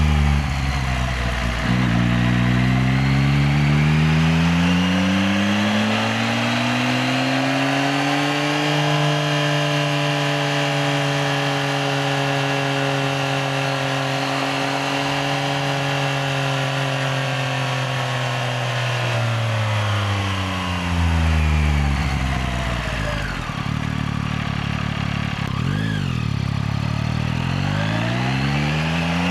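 Yamaha XSR900's inline-three engine pulling the bike along: the revs climb smoothly over several seconds, hold steady while cruising, drop as the bike slows about twenty seconds in, and climb again near the end.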